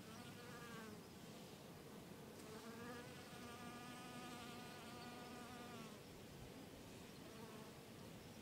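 Faint buzzing of a flying insect such as a fly or bee passing close by, its pitch wavering up and down. It buzzes briefly at the start and again for about three seconds from a couple of seconds in.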